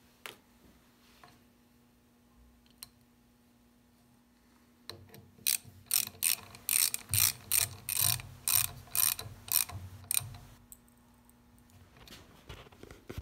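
Hand ratchet clicking in quick back-and-forth strokes, about two a second for some five seconds from about five seconds in, as a threadlocked bolt is run down into the ATV steering knuckle while fitting the new ball joint.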